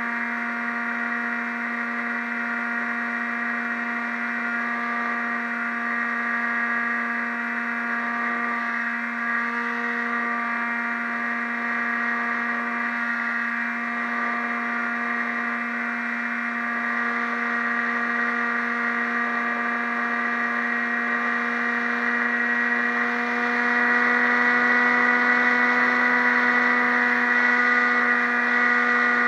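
Motor and propeller of a radio-controlled model airplane running at steady cruise, heard from a camera mounted on the plane: an even drone that holds one pitch and grows a little louder near the end.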